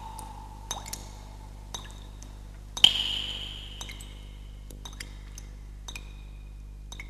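Intro sound effects: sharp metallic pings and ticks, each leaving a ringing tone that fades. The loudest strike comes about three seconds in and rings high for about a second. A steady low hum lies underneath.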